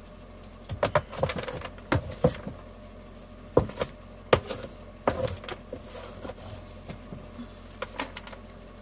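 A small hand brush sweeping spilled, crumbled pelleted horse-bedding litter into a metal dustpan, with scraping strokes and a string of sharp knocks and clicks as the brush and pan strike each other and the floor.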